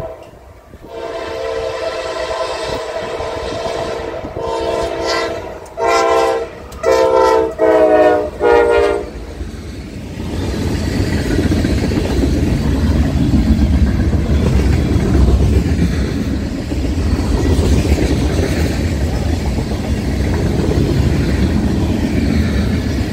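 Diesel freight locomotive's multi-tone air horn sounding for a grade crossing: one long blast, then several short blasts ending about nine seconds in. It is followed by the steady rumble and clatter of freight cars, hoppers and tank cars, rolling past on the rails.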